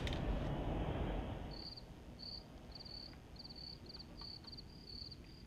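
Cricket chirping: short chirps, each a quick run of a few pulses, repeating about twice a second, starting about a second and a half in.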